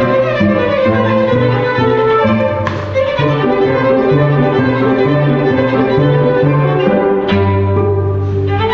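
Live chamber ensemble of violin, flute, cello and piano playing a brisk light-classical piece, violin leading over a cello bass line, with a couple of sharp strikes.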